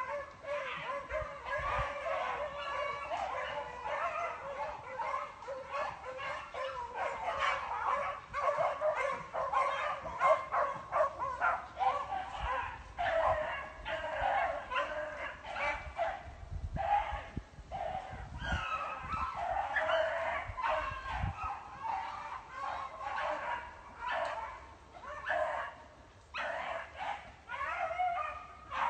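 A pack of beagles giving voice on a swamp rabbit's trail: many overlapping bays and yips run on almost without a break.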